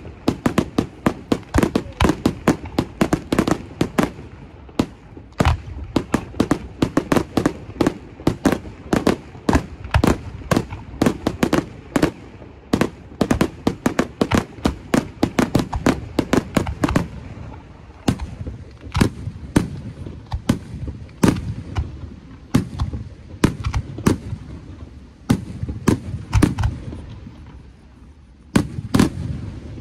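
Aerial fireworks display: a rapid barrage of sharp shell bursts and launch bangs, several a second, thinning after about 17 seconds to sparser, spaced bangs with rumbling between them.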